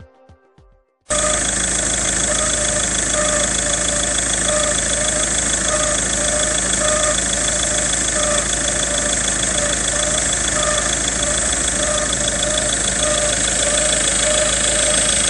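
Ford Focus 2.0 TDCi four-cylinder diesel engine idling, with a pulsing note repeating a little more than once a second over the steady running: the abnormal noise of a worn alternator one-way clutch pulley.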